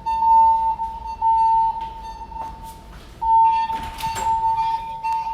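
Building fire alarm evacuation tone sounding during a fire alarm test: a steady beep near 1 kHz in groups of three half-second beeps, a pause, then beeping again, the temporal pattern used for evacuation. A few short clinks and rattles come through about four seconds in.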